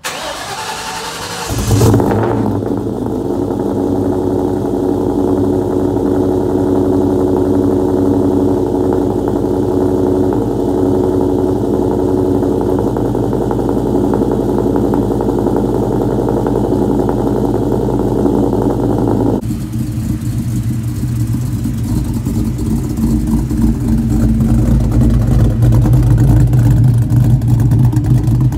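A 2004 Mustang SVT Cobra's cammed, supercharged 4.6-litre V8 is cranked on the starter and catches after about a second and a half, then idles steadily through its exhaust. About two-thirds of the way in the sound changes abruptly to the engine running with a deeper note that grows louder toward the end.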